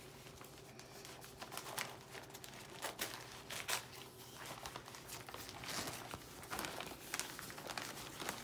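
Newspaper crinkling and rustling as it is unwrapped and handled, with irregular sharper crackles and a little tearing.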